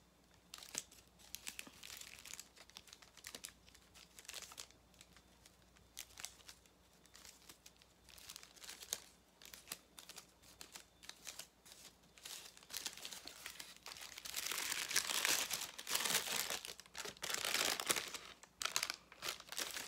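Gift wrapping paper being crinkled and torn open by hand: faint, scattered crackles at first, becoming louder, denser crinkling and rustling near the end.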